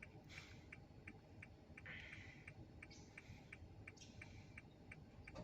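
Near silence with a faint, regular ticking, about three ticks a second.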